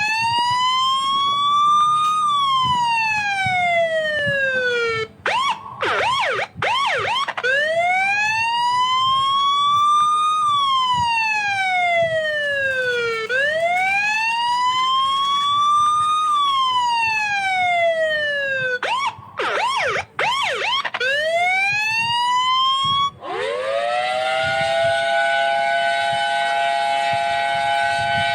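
Electronic police car siren wailing, its pitch slowly rising and falling about every six seconds, broken twice by short stretches of rapid yelping. About twenty-three seconds in it switches to a tone that rises quickly and then holds steady.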